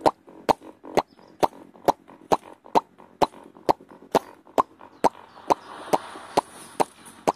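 Sharp, evenly spaced clicks, a little over two a second, with a soft rushing hiss swelling about five seconds in and fading near the end.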